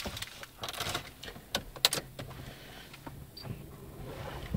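A few sharp clicks and rustles from the ignition key and switch as an Audi A4 1.9 TDI's ignition is turned on, with a faint steady low electric hum. These are the sounds of the car waking up with the glow plugs preheating before a cold start, the engine not yet cranked.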